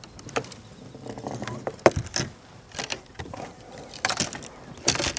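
Scattered knocks, clicks and rustling from a person moving about on the carpeted deck of a bass boat, the loudest knocks about two seconds in and near the end.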